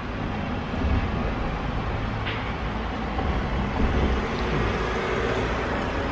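Steady outdoor background noise: a low, fluctuating rumble under an even hiss.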